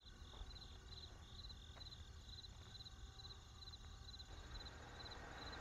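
Faint cricket chirping, about two short chirps a second, over a low steady rumble.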